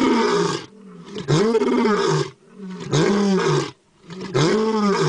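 Big cat roaring, as a sound effect: a series of drawn-out, growly roars about a second long and roughly a second and a half apart. Each one rises and then falls in pitch.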